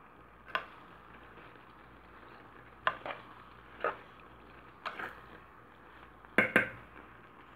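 A stirring spoon knocking and scraping against a metal pot while stirring macaroni in a thick white sauce: a string of sharp clinks every second or so, the loudest two close together near the end.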